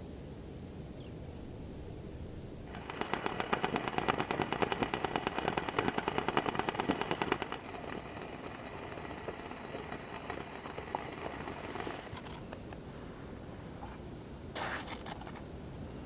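Stainless steel pot of water boiling on a small camping stove: a fast, dense crackling rattle for about five seconds that stops abruptly. Afterwards a few light clicks, and a brief scrape near the end.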